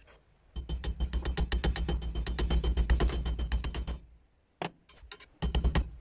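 Rapid, evenly spaced knocking on the sickle's metal tang, about ten strikes a second, in a long burst, then a pause with a few single knocks and a second burst near the end.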